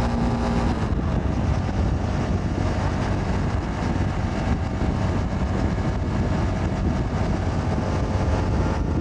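A motorcycle riding at road speed: wind rushing over the helmet microphone with the engine running underneath. A steady engine note is clear at first, then fades into the wind noise about a second in.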